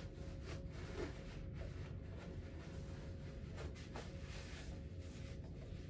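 Faint rustling and rubbing of a paper towel wiping a plastic graduated measuring container dry, in many short irregular strokes, over a steady low room hum.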